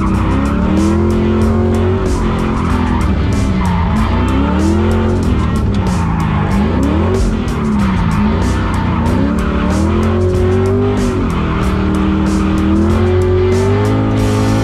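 Mazda Miata NB's swapped-in LS V8 engine, heard from inside the cabin, revving up and falling back every second or two while the car drifts, with tyres skidding.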